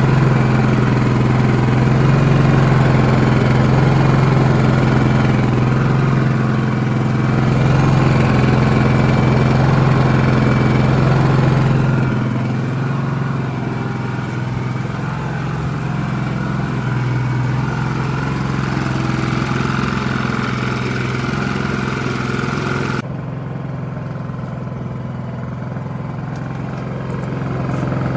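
Small portable generator engine running steadily with a strong low hum. It drops in level about twelve seconds in and again suddenly a few seconds before the end.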